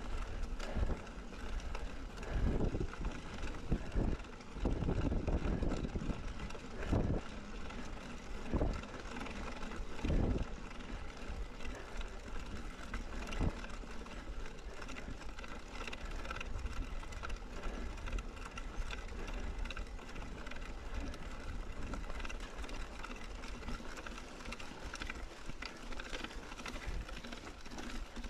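Mountain bike being ridden off-road: steady rolling and wind noise on the microphone, with a run of low thumps and buffets during roughly the first ten seconds, then steadier.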